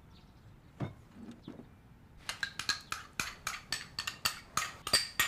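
A spoon clinking and scraping against a ceramic pot as rice porridge is scooped out: a single knock about a second in, then a quick run of light clinks, about four a second, from roughly halfway through.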